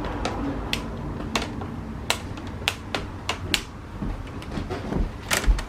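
Irregular sharp plastic clicks and snaps as a laptop's front screen bezel is pried and pulled away from the display panel, with a louder knock near the end.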